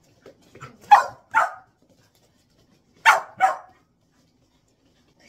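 Dog barking: two quick pairs of short barks, about a second in and again about three seconds in.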